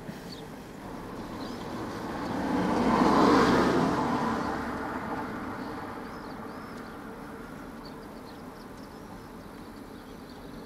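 A motor vehicle passing by: its sound swells to a peak about three seconds in and fades away slowly over the following few seconds, leaving a low steady background.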